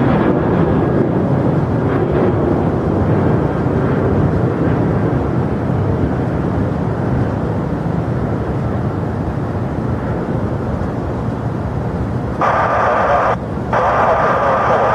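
Jet airliner engines, a loud steady rumble that eases slightly over the seconds. Near the end, a burst of radio hiss from an air traffic control channel cuts in twice.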